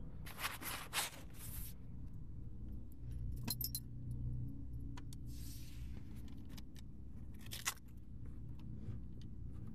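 A bunch of keys jangling in the hand, loudest in a burst from about half a second to two seconds in, followed by scattered metallic clicks and a brief rustle as the keys and hands move over the car's seat and floor.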